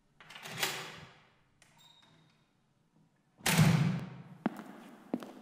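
Percussive opening of a band's music: a crashing hit about half a second in that dies away, then a louder crash about three and a half seconds in that rings out, followed by sharp clicks keeping a steady beat, about one every 0.7 s.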